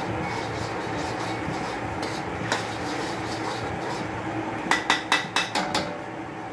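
Steel ladle stirring and scraping thick gravy in an iron wok over a steady hiss, then about six quick metallic knocks of the ladle against the wok near the end.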